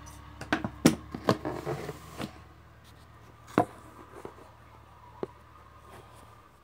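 Sharp knocks and bumps from handling things in a small room: a quick cluster between about half a second and two seconds in, then two single knocks, over a low steady hum.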